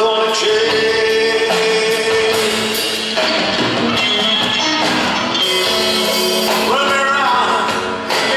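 A live rock band playing a slow song on electric guitar, upright bass and drums. A man's lead vocal holds long sung notes over it.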